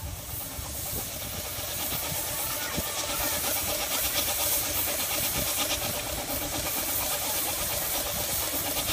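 Steam hissing from a steam traction engine, growing louder over the first couple of seconds, with a quick, regular pulsing through the hiss.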